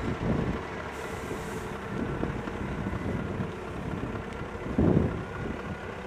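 Volvo L70D wheel loader's diesel engine working as the loader drives up and lifts its loaded bucket to tip it. Low gusts of wind rumble on the microphone, the strongest about five seconds in.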